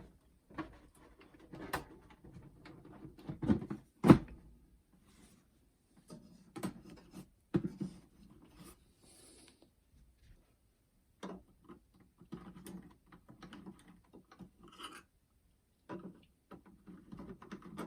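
Scattered clicks, knocks and rubbing from handling a boombox and its cassette deck, with a sharp knock about four seconds in. No tape playback is heard.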